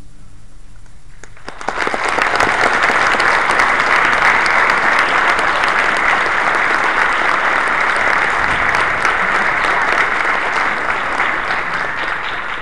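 Audience applause in an auditorium, starting suddenly about a second and a half in, after a brief hush following the end of a piece, and fading near the end.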